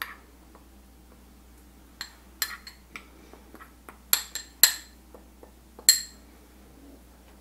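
Metal spoon clinking and scraping against a small glass bowl, in loose bunches of sharp clinks about two, four and six seconds in.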